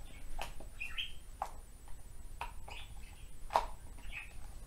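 Very sticky slime being squished and mixed by hand in a plastic tub: a few sharp wet pops and short squeaky squelches, several times.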